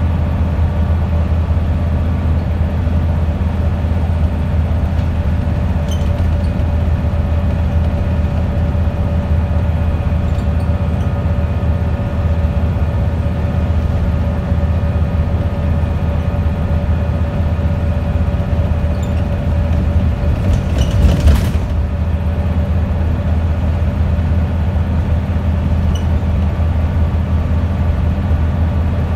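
Wright Solar-bodied Scania single-deck bus on the move, heard from a passenger seat inside: a steady low engine and road drone with a faint steady whine above it. A brief rattle comes about three-quarters of the way through.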